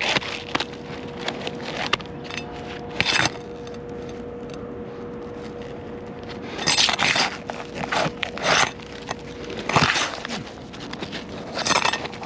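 Hand tools scraping and prying at an old, still-sealed asphalt shingle as its roofing nails are pulled and it is worked loose. The scrapes and cracks come in short irregular strokes every second or two, over a faint steady hum.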